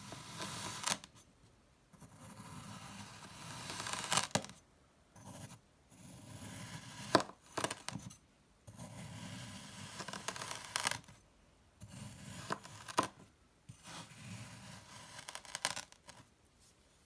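A knife slicing slowly down through kinetic sand, over and over: each cut a soft grainy crackling scrape lasting a second or two, several ending in a sharp tap as the blade meets the table.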